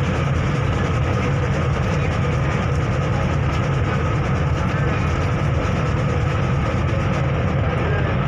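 Steady low engine drone of a river ferry running under way, with a faint steady hum above it.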